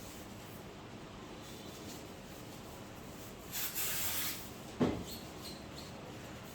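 A brief scraping rustle, then a single sharp knock, like parts or tools being handled on a work surface.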